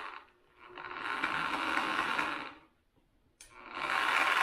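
Small handheld electric drill running in short bursts of about two seconds, stopping briefly and starting again, as it bores holes through a cloth-covered shadowbox backing board.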